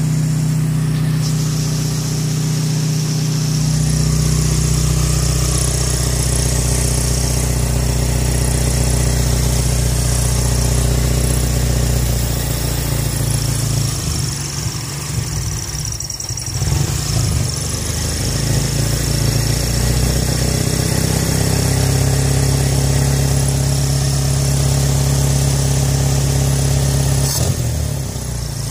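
Toyota 4A-F carbureted 1.6-litre four-cylinder engine idling while the carburetor's air (mixture) screw is turned. The idle note shifts, goes rough and uneven for a few seconds in the middle, then settles back to a steady idle as the mixture is set.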